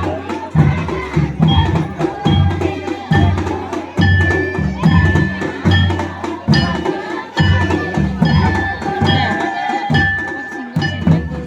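Traditional folk music with a steady, driving drum beat and a high melody line over it.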